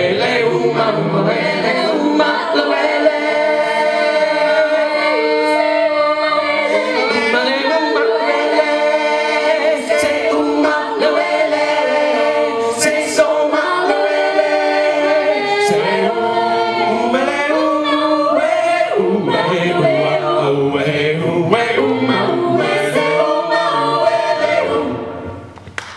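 A small mixed a cappella choir, men and women singing together into handheld microphones through a PA, holding and moving through sustained chords. The last chord dies away near the end.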